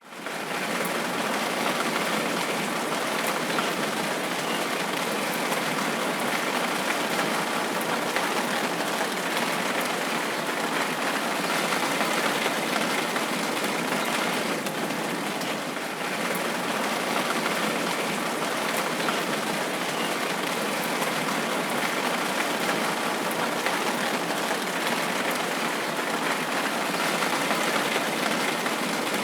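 Steady rainfall: an even hiss of rain with faint individual drops pattering, fading in at the very start.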